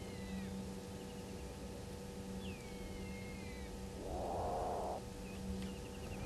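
An unidentified hoarse, rasping animal call about a second long, about four seconds in, with falling whistled bird calls before it and a steady electrical hum underneath.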